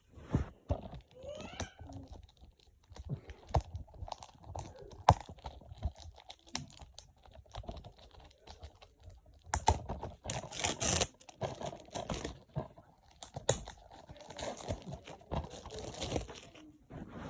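A DVD's plastic packaging being handled and opened: crinkling and tearing of plastic wrapping, with many small clicks and taps from the plastic case. The crinkling is densest about ten seconds in and again a few seconds before the end.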